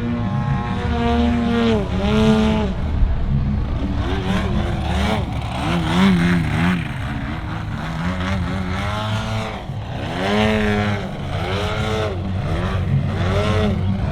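Engine and propeller of an Apex Aerotech 102" Slick 360 RC aerobatic airplane, throttled up and down through 3D manoeuvres, its pitch rising and falling again and again.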